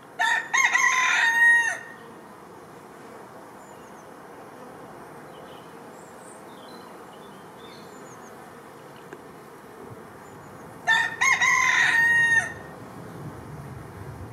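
A rooster crowing twice, about ten seconds apart, each crow lasting about a second and a half. Beneath the crows is the steady hum of honeybees flying at a hive entrance.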